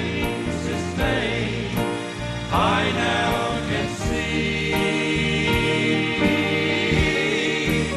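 Gospel music: a vocal group singing in harmony over instrumental backing with a light steady beat.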